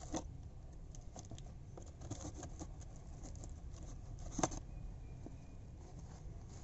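Paper and cardboard parcel packaging being cut and handled: a run of small scratchy rustles and clicks, with one sharper click about four and a half seconds in.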